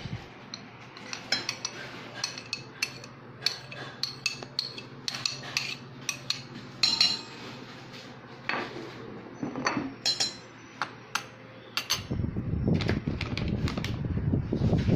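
A metal spoon scraping and tapping against a plate and a stainless steel bowl, with repeated sharp clinks as food is scraped off into the bowl. Near the end the clinks give way to a low rustling of handling noise.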